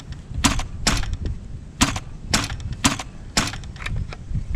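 Metal hand tools, pliers and screwdrivers, clanking against each other in a plastic bucket as they are handled: a sharp clank with a short ring roughly every half second.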